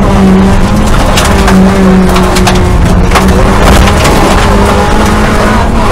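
Suzuki rally car's engine running at steady revs, heard from inside the cabin, with gravel and stones clattering against the underbody throughout.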